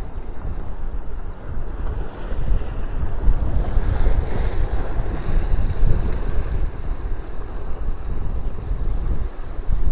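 Heavy sea surf washing and breaking, with wind buffeting the microphone; the wash swells up about four seconds in.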